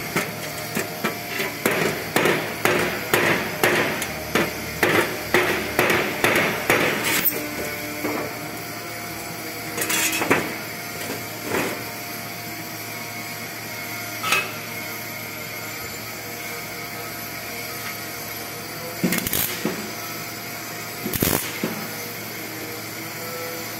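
A hammer strikes a thin sheet-steel duct elbow about fifteen times, roughly two blows a second, for the first seven seconds, tapping a segment into place, then a few single knocks. Near the end come two short crackling bursts of MIG tack welding on the elbow's seam.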